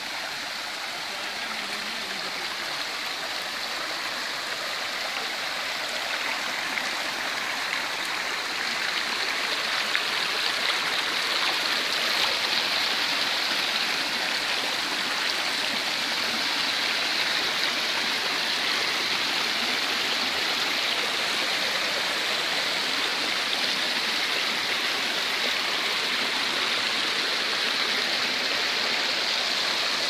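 Mountain stream rushing over rock slabs and down a small waterfall: a steady rush of water that grows a little louder over the first ten seconds or so.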